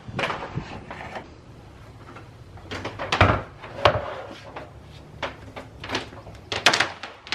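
Head of a Ridgid shop vac being carried and set down on a workbench: a string of knocks, clunks and rattles, loudest about three seconds in and again near the end.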